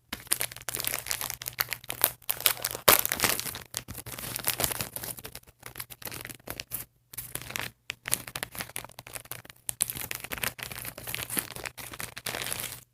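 Plastic packaging crinkling and rustling in irregular spurts with brief pauses as small doll accessories are unwrapped.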